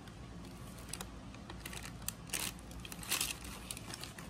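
Plastic wrapping crinkling and rustling as it is handled, with scattered small clicks and two short louder rustles about two and a half and three seconds in.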